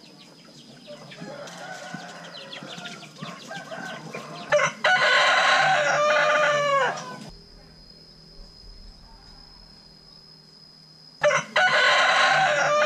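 Rooster crowing twice: a loud crow about four and a half seconds in that drops in pitch at its end, and a second one beginning near the end. Before the first crow, softer clucking of chickens.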